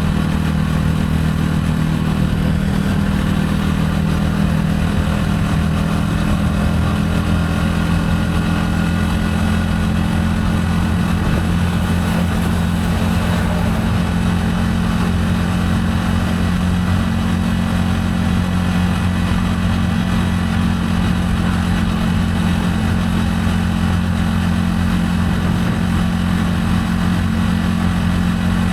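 Gilera AC4 motorcycle engine running steadily while riding at a near-constant speed, its pitch hardly changing.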